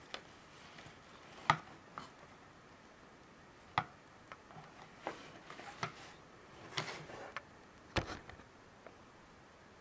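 Irregular sharp plastic clicks and taps from a GoPro Chesty chest mount's buckle and plastic mount plate being handled, several over the stretch, the loudest about a second and a half in and another strong knock about eight seconds in.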